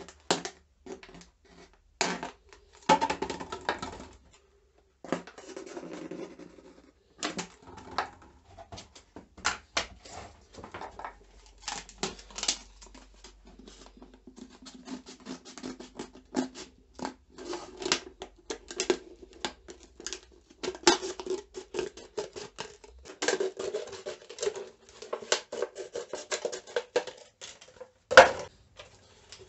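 Thin PET plastic bottles being cut with a knife and scissors and handled: irregular crackling, scratching and clicking of the plastic, with sharp knocks of bottles set down on the workbench.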